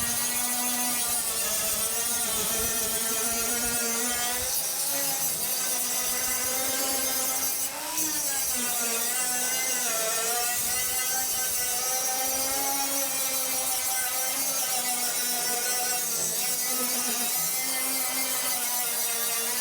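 A handheld power tool's motor running continuously under load on metal, its pitch wavering as the load changes, with a hiss throughout and a brief dip about eight seconds in.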